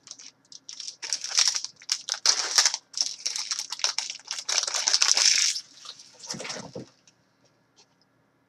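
Foil wrapper of a hockey card pack being torn open and crinkled, a dense crackling lasting several seconds, followed by a shorter rustle about six seconds in.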